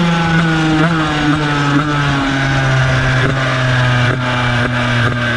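Tuned two-stroke racing scooter engine with an expansion exhaust, its note falling steadily in pitch as the scooter slows down off the throttle, with wind rushing past.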